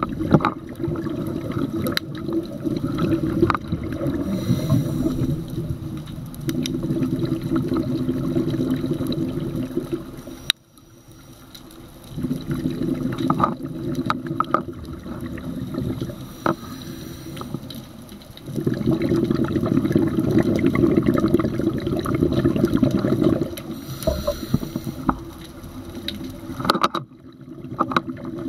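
Scuba diver's breathing heard underwater: long bursts of exhaust bubbles from the regulator, each lasting several seconds, broken by quieter pauses for the in-breath, with scattered sharp clicks.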